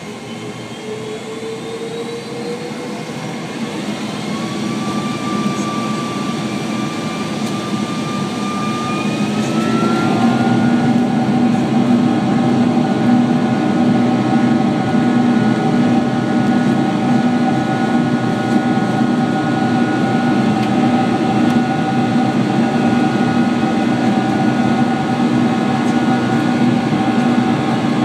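Rolls-Royce RB211-524H turbofans of a Boeing 747-400, heard inside the cabin over the wing, spooling up to takeoff power. A whine rises in pitch and loudness for about the first ten seconds, then holds as several steady whining tones over a loud rushing drone while the jet accelerates down the runway.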